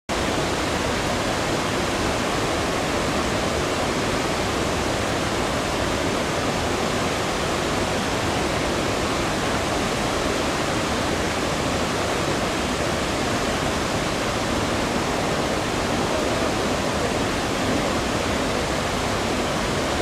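A rain-swollen mountain stream pouring over a wide weir and churning through the rocky rapids below: a steady, unbroken rush of water.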